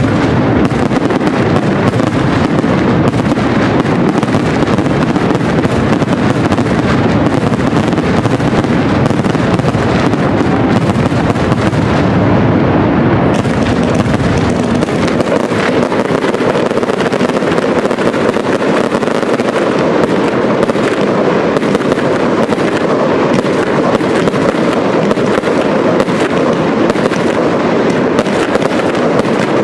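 Fireworks display: aerial shells going off in a dense, near-continuous barrage of bangs, loud throughout with no pauses.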